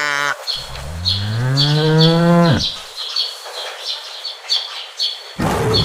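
A cow mooing: one long moo rising in pitch, over a steady run of high chirps about twice a second. A loud, rough roar starts near the end.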